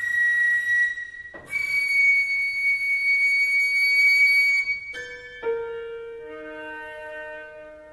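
Flute and piano playing contemporary classical music. The flute holds a high note, breaks off after about a second, then sustains a slightly higher long note with audible breath. Near the middle, piano notes are struck twice and left ringing, fading slowly.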